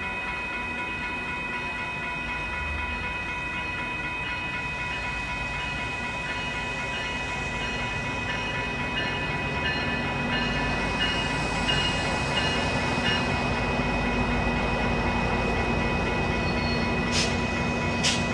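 Metra passenger train led by a former Amtrak F59PHI diesel locomotive approaching, its rumble growing steadily louder, over the steady ringing of the grade-crossing signal bell. Two sharp clacks near the end.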